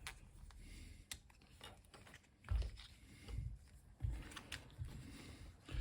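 Faint clicks and a few dull bumps from hands working a flat ribbon cable and its plastic insulation-displacement connector on a bench.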